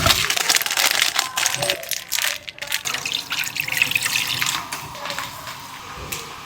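Water running and splashing, as from a kitchen tap into a sink, with sharp clatters and splashes over the first few seconds, then a steadier, quieter flow that eases off after about five seconds.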